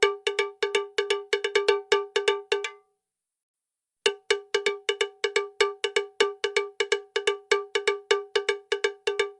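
A small bell struck over and over on one ringing note, rapidly and a little unevenly at about five strokes a second. It stops dead for about a second about three seconds in, then starts again.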